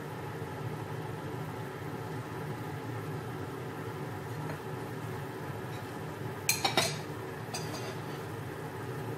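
A wooden spatula stirring vegetables and sauce in a non-stick pot over a steady low hum, then a quick cluster of three sharp knocks and one more a moment later as the spatula is tapped against the pot and lifted out.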